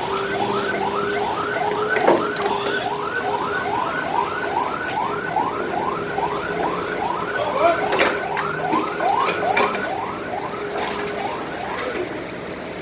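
Electronic alarm sounding a fast warble of short rising sweeps, about three a second, over a steady hum, with a couple of clanks.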